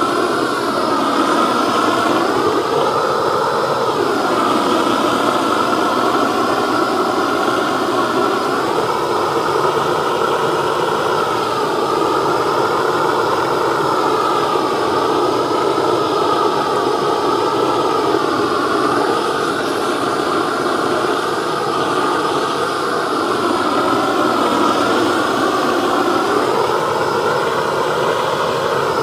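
Hose-fed gas blowtorch burning steadily, a continuous hiss of burning gas as it scorches carved wood to seal it.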